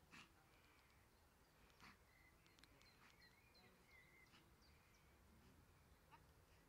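Near silence: faint outdoor ambience with two faint clicks early on and a few faint bird chirps in the middle.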